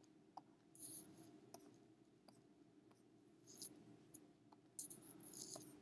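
Faint scattered clicks and a few short scratchy strokes of a stylus tapping and drawing on a tablet, over a low steady hum.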